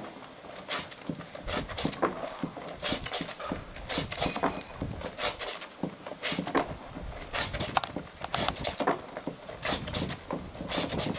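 Laundry being scrubbed by hand in a plastic basin of soapy water: wet cloth rubbed and sloshed in short, irregular strokes, about two a second.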